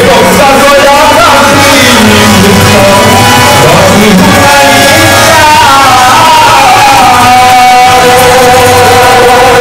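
Loud devotional singing, nam sankirtan, with a melody gliding up and down over a steady held low note.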